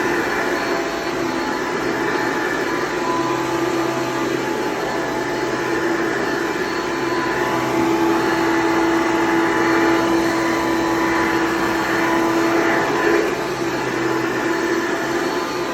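Hoover WidePath Breathe Easy SoftGuard upright vacuum cleaner running steadily, a motor whine over rushing air. Its pitch holds steady while it gets a little louder for a few seconds past the middle.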